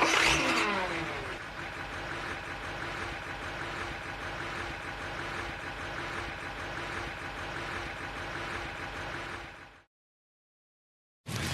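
Car engine rev that falls away in pitch, then settles into a steady idle for several seconds before cutting off suddenly.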